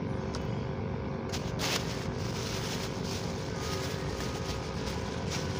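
Steady drone of a distant motor over an uneven low rumble, with a short rustle or click about a second and a half in.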